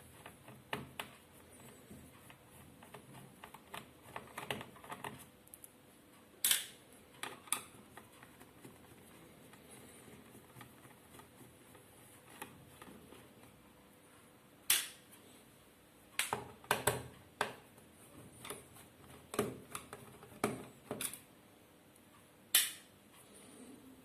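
Scattered sharp clicks and small knocks, some single and some in quick clusters, from a laptop's battery and plastic bottom-cover screws being taken out by hand and with a screwdriver.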